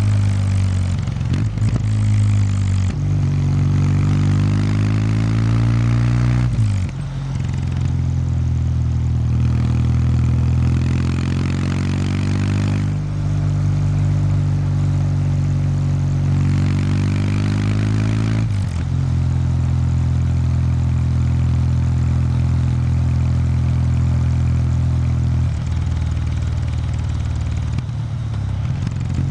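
2019 Kawasaki W800 Street's air-cooled parallel twin running through its stock exhaust while riding. The engine note climbs and then changes suddenly in pitch several times, as the throttle is opened and eased off.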